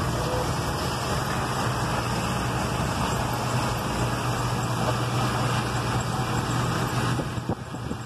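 Massey Ferguson 850 combine harvester running as it harvests soybeans close by: a steady engine hum under a constant rush of machinery noise, heard through a vehicle's open window. The noise dips briefly about seven seconds in.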